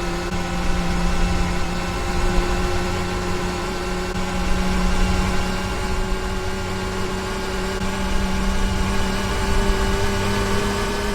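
Hotpoint washing machine running, its motor giving a steady, even hum with a faint whine over a low rumble.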